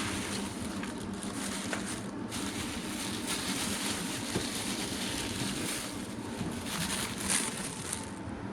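Plastic packaging bag crinkling and rustling as it is handled and opened, with irregular crackles.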